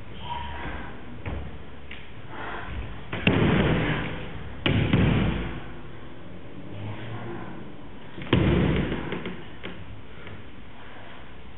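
Three loud thuds on a stage floor from actors' bodies and bare feet moving, the first two a second and a half apart and the last one about three-quarters of the way in. Each thud carries a short echo in the hall.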